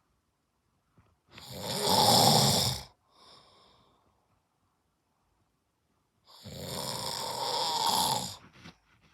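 A man snoring in his sleep: two long, loud snores about five seconds apart, the first followed by a fainter breath out.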